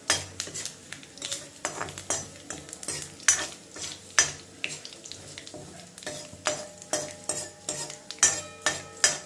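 A metal ladle stirring and scraping in a metal kadai, clinking against the pan again and again, while whole spices (dry red chillies, bay leaves and cumin seeds) sizzle in hot mustard oil as a tempering is fried. Near the end some strikes leave the pan ringing briefly.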